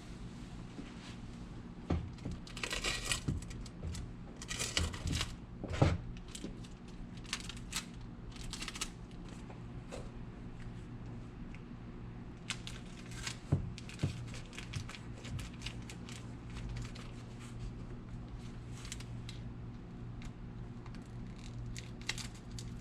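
Hands working on a soccer shoe's lining: irregular rustling, crinkling and scraping of material with sharp clicks, in two busy spells, over a steady low hum.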